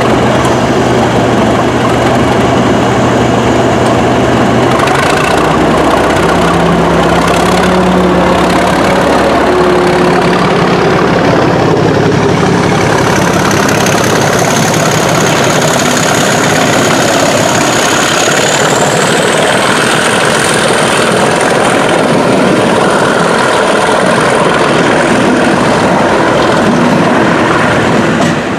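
English Electric Class 37 diesel locomotives pulling away under power: the V12 engine runs steadily, opens up about five seconds in, and a high whistle rises in pitch over the following ten seconds before holding steady.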